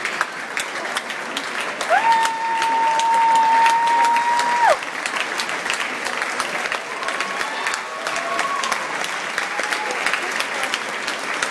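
Audience applauding steadily, with one long, high, held call from the crowd rising above the clapping about two seconds in and lasting nearly three seconds, and fainter calls later.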